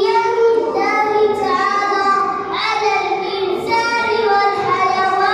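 A young child singing into a microphone in long, drawn-out notes that step up and down in pitch.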